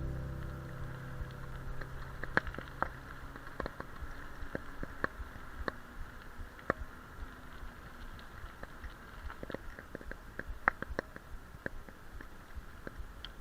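Bicycle being ridden along a road, with a steady low rumble and irregular sharp clicks and rattles as it goes over the surface.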